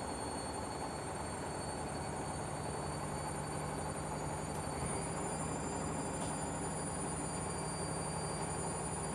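Beko and Candy washing machines running together: a steady drum rumble with a low hum and thin high motor whines that step up a little in pitch about five seconds in.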